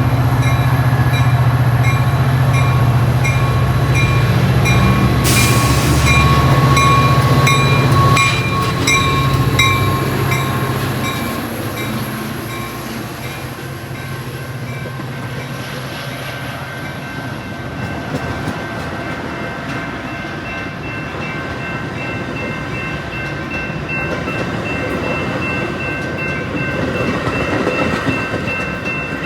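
Metra commuter train passing, its diesel locomotive's engine running loud and heavy for the first ten seconds or so, then fading. A bell dings in quick, regular strokes, about twice a second, while the engine is loud.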